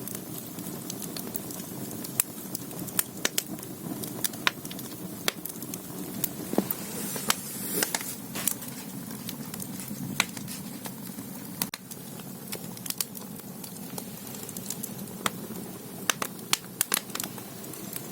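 Firewood burning in the firebox of a Korean ondol floor-heating room: sharp, irregular crackles and pops over a steady low rush of flame, with a brief hiss about halfway through.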